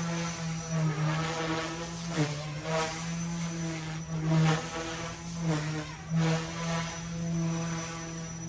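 Goosky S2 electric RC helicopter in flight, its rotors making a steady buzzing hum with a thin high motor whine above. The pitch dips and the sound swells several times as the pilot throws it through manoeuvres.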